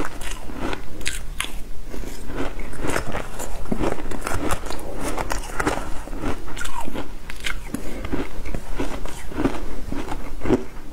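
Shaved ice being bitten and chewed close to the microphone: a dense, irregular run of crunches and crackles.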